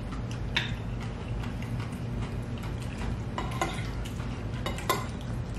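Utensils scraping and clicking against a bowl while food is picked up and eaten, with a few sharp clicks, over a steady low hum.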